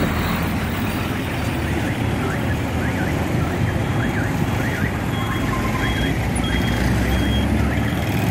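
Road traffic at a busy junction: truck, motorcycle and auto-rickshaw engines running in a steady rumble. From about two seconds in, an electronic alarm warbles over it in quick repeating chirps, about two a second.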